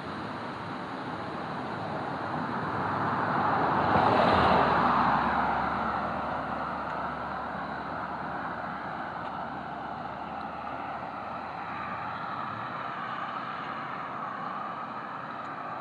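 A vehicle passing on the road, growing louder to a peak about four seconds in and then fading away, over a steady outdoor rushing hiss.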